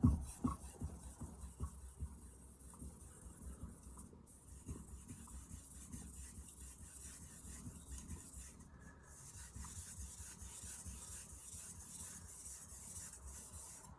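Blue #2 carbon-steel santoku blade being stroked back and forth on a soft whetstone: a steady grinding rasp, broken by brief pauses about four and nine seconds in.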